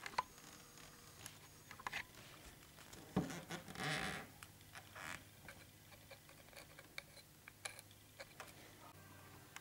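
Faint clicks, taps and rustles from a plastic speed-cube piece and a Dremel rotary tool being handled, the tool not running, with a short scraping rustle about three to four seconds in.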